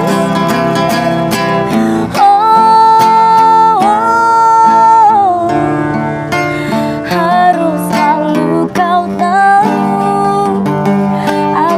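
A woman singing with long held, wavering notes, accompanied by a strummed acoustic guitar.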